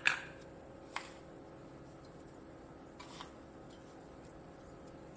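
Light clicks and taps of kitchen utensils and containers during cooking: a sharp click at the start, another about a second in and a faint clatter around three seconds, over a steady low hum.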